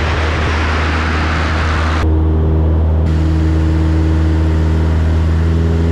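Single-engine propeller aircraft's engine droning steadily in flight, with a loud rush of wind over it that cuts off suddenly about two seconds in.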